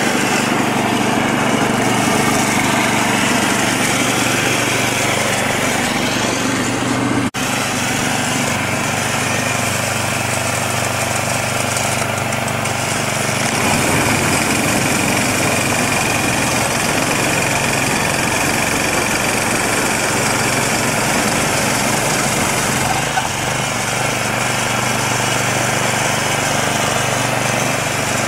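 Small engine of a MARKO tiller running steadily under load, driving a belt-driven snow-blower attachment as it throws snow. There is a momentary break in the sound about seven seconds in.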